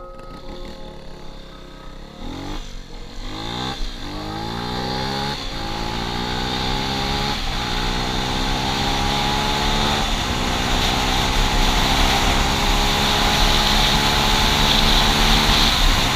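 Beta RR 125 LC four-stroke single-cylinder engine accelerating hard through the gears. Its pitch climbs and drops back at each upshift, four times in the first eight seconds or so, then climbs slowly and grows louder in a higher gear before cutting off suddenly at the end.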